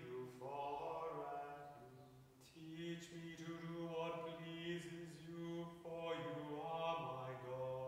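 Male voices chanting a psalm unaccompanied to a plainsong tone: three phrases, each held mostly on one reciting note with short breaks between.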